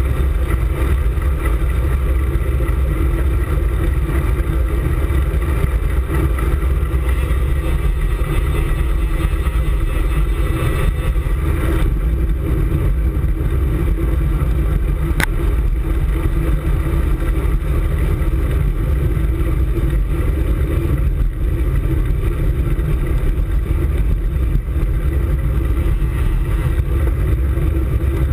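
Steady wind rumble on the microphone of a camera mounted on a moving road bike's handlebars, mixed with tyre and road noise. One sharp click about halfway through.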